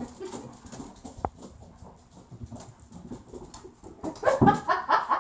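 Malamutes playing: claws and paws clicking and scrabbling on a vinyl tile floor, then about four seconds in a louder burst of dog play vocalising.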